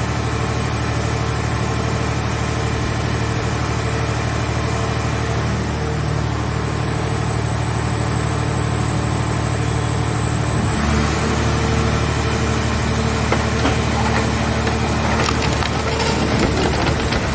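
Scrap car shell baler's hydraulic power unit running steadily; about eleven seconds in its tone shifts as it takes load. In the last few seconds the car body's sheet metal crackles and cracks as it is crushed.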